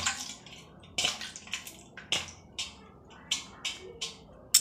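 Kitchen knife slicing through a handful of leafy greens held in the hand: a series of short, crisp cuts, about two a second and unevenly spaced.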